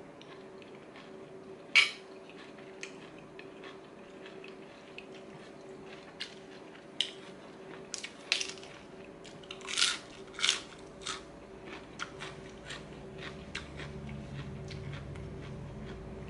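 Eating sounds: a person chewing and crunching mouthfuls of a spicy squid and green mango salad with lettuce, with scattered sharp clicks of a spoon on the plate, the loudest about two seconds in and around eight to ten seconds in. A faint steady hum runs underneath.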